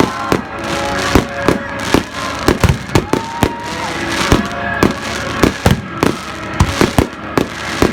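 Fireworks display: a rapid string of shell bursts and bangs, about two or three a second, with crackling between them and a few whistling shells gliding in pitch.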